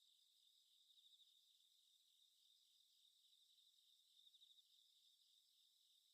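Faint crickets chirping steadily in an even, high-pitched pulse: a night-time ambience.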